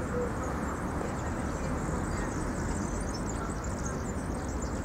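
Outdoor ambience: a steady low rumble, with a pigeon cooing briefly at the very start and small birds chirping faintly and high-pitched through the second half.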